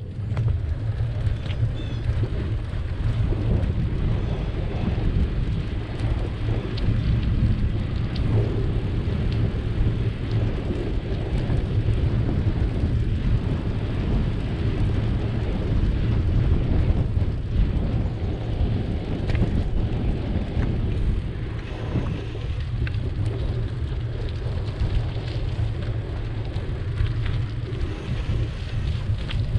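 Wind buffeting the microphone of a bike-mounted camera with a steady low rumble, mixed with the bicycle's tyres rolling over rough, cracked asphalt and a few small knocks from bumps.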